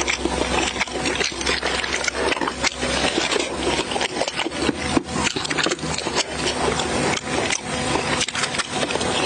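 A person chewing stewed beef nose, a dense, steady run of wet clicks and smacks from the mouth.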